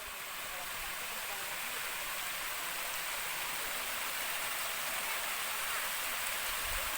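Steady rushing of running water from a stream or small waterfall, an even hiss.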